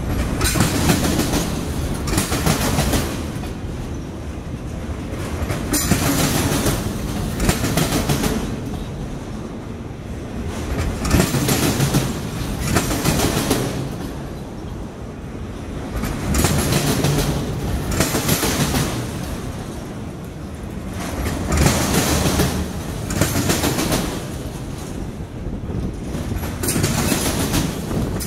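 Freight train of autorack cars rolling past close by: steel wheels clattering on the rails, the sound swelling and easing in waves every few seconds as the cars go by.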